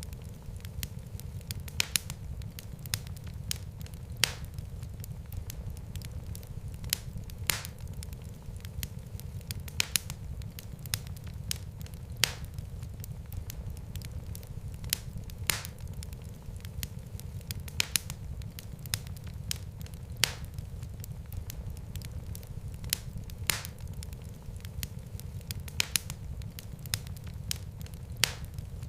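Wood fire burning in a fireplace: a steady low rumble of flames, with irregular sharp crackles and pops, the loudest every second or two.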